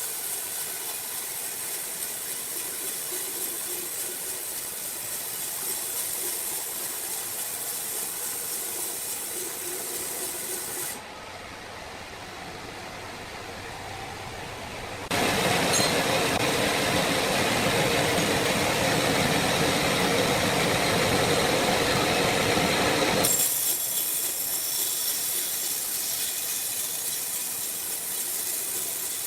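Sawmill saw cutting through wood, a steady rasping noise that drops and dulls for a few seconds about a third of the way in, then comes back louder for several seconds before settling to its first level.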